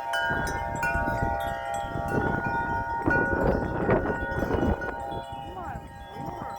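Several wind chimes ringing together in strong gusty wind, many tubes struck over and over so their tones overlap, with wind buffeting the microphone, heaviest around the middle.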